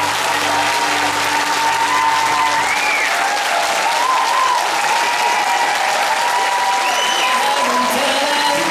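Concert audience clapping and cheering loudly, with wavering whistles or voices above the noise; low sustained band notes fade out in the first second or two.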